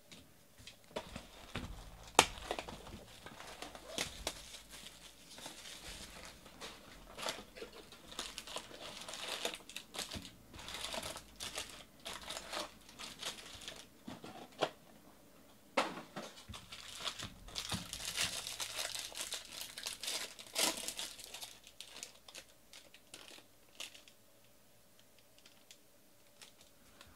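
Foil card-pack wrappers crinkling and tearing as Bowman baseball packs are handled and ripped open, with sharp clicks and crackles among the rustling. The handling trails off near the end.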